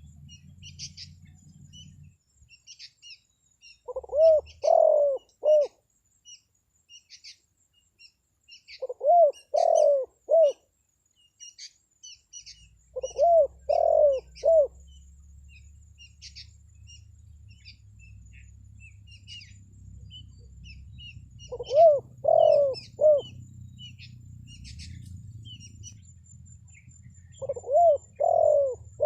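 Spotted dove (tekukur) cooing: five phrases of three or four notes, each repeated every four to eight seconds, played as a lure call for wild doves. Faint, rapid, high chirps of small birds run underneath.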